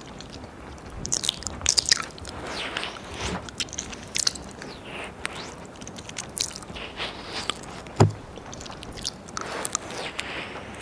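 Wet mouth sounds close on a binaural ear microphone: tongue licks, lip smacks and sharp little clicks, with soft breaths between them. There is a louder thump about eight seconds in.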